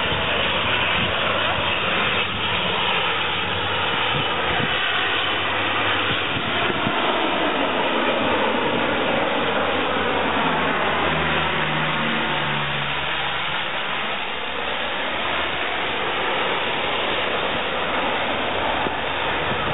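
Twin-engine Canadair amphibious water bomber flying low overhead, its engines and propellers droning steadily, with a sweeping change in tone as it passes over.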